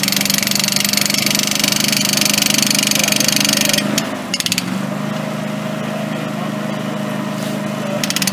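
Jackhammer hammering rapidly as it drives an earth anchor rod into the ground, stopping briefly about four seconds in, running more quietly for a few seconds, then hammering hard again near the end. An engine runs steadily underneath.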